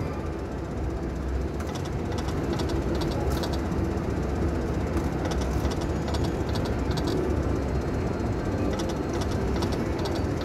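Steady din of a casino slot floor, with a Konami Dragon's Victory video slot playing its free games: three runs of light ticks a few seconds apart as the reels spin and stop one after another.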